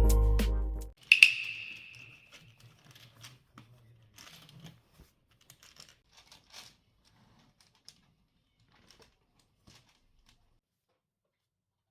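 Background music cuts off, then one sharp clink rings briefly, followed by faint scattered clicks and rustles of small objects being handled.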